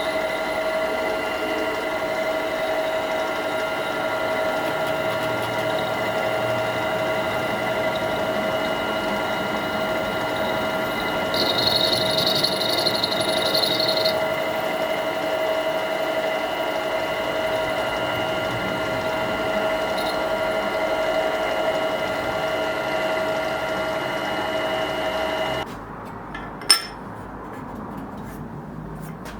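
Clarke CL300 mini metal lathe running steadily with a constant motor and gear whine as it turns aluminium. A harsher cutting sound rides on top for about three seconds partway through. The motor stops abruptly near the end, followed by a single sharp knock.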